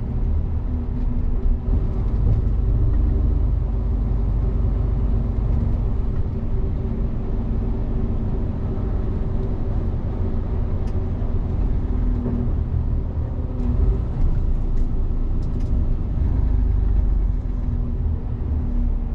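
Truck's diesel engine and road noise heard from inside the cab while driving: a steady low rumble with a faint hum.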